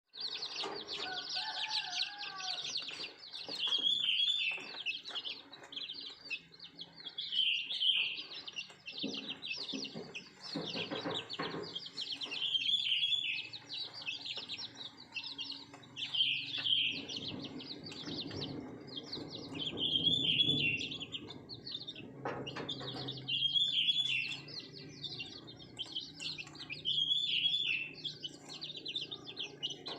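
Chicks peeping and chirping without a break, with a brighter chirping phrase coming back about every four seconds and some lower clucking from hens in the middle.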